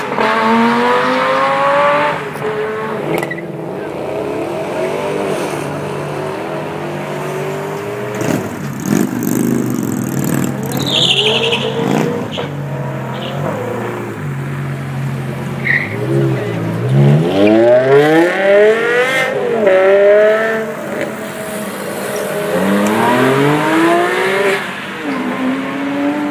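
Several performance cars accelerating hard from a standstill, one after another. Each engine's pitch climbs steeply and drops at the gear changes, with engines idling and being revved between the runs.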